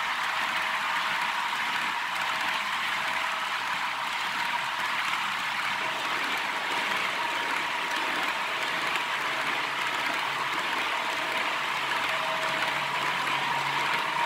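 H0-scale model double-stack container train rolling past close by: a steady rush of its wheels on the rails. A low hum joins near the end.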